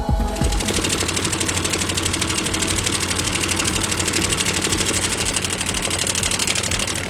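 A machine engine running steadily under load with a rapid, even pulsing rattle.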